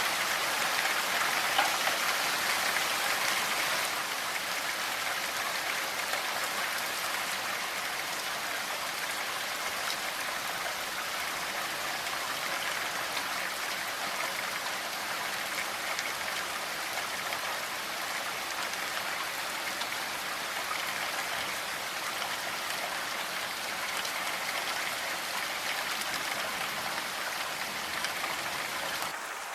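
Steady rain falling on leaves: an even hiss, dense with faint scattered drop ticks.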